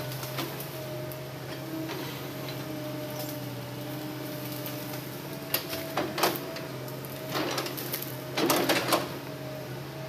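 Hitachi hydraulic excavator's diesel engine running steadily, with a string of sharp knocks and short scraping bursts in the second half as the bucket grips and drags a felled log.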